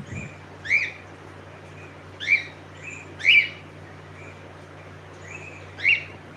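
Cockatiel chirping: four loud short rising calls, each a quick upward sweep, with a few softer chirps between them.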